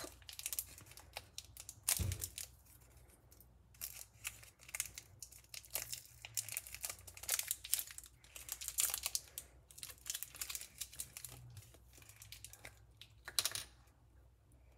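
Candy wrapper crinkling and tearing in many short, irregular crackles as it is picked and pulled open by hand, with one thump about two seconds in.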